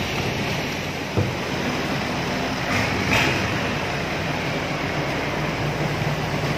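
Long-tail boat engine running steadily under way, with wind and water noise over it and a brief louder rush of noise about three seconds in.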